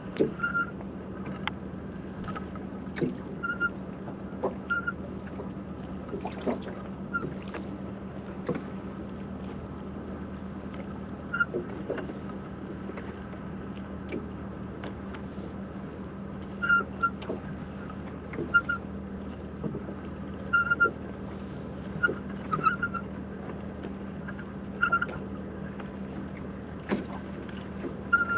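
Sound recorded through an underwater camera in the sea: a steady low hum under scattered clicks and crackles, with short high tonal blips every second or two.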